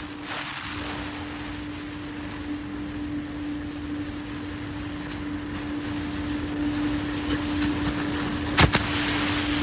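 A machine motor running steadily, a constant hum with a rushing hiss of air, with two sharp clicks near the end.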